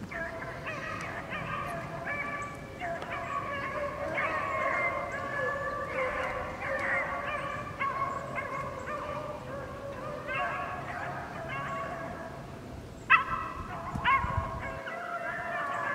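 A pack of beagles baying together, many drawn-out overlapping howls, the chorus of hounds running a rabbit. One dog bays loud and close about 13 seconds in.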